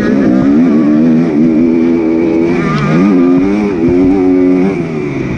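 Motocross bike engines revving hard, the pitch rising and falling with throttle and gear changes. About two and a half seconds in, the pitch drops briefly and then climbs again.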